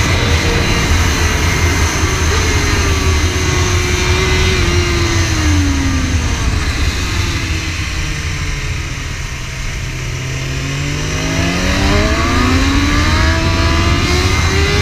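BMW S1000RR's inline-four engine heard from on board over heavy wind rush: the revs fall over the first several seconds as the bike slows into a bend, then climb steadily again from about ten seconds in as it accelerates out.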